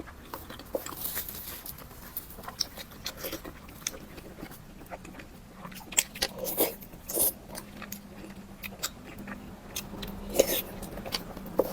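Close-miked eating: a person biting and chewing food, with irregular wet mouth clicks and smacks and a few sharper bites about six and ten seconds in.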